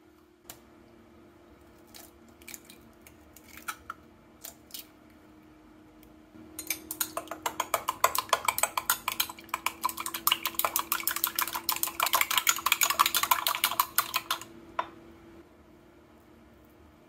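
Eggs being beaten with a utensil in a glass Pyrex measuring cup: a fast, even run of clinking strokes, several a second, lasting about eight seconds, preceded by a few scattered taps.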